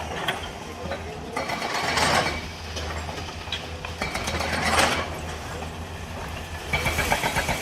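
Heavy demolition machinery running steadily, with three bursts of grinding and clattering as the building is broken down.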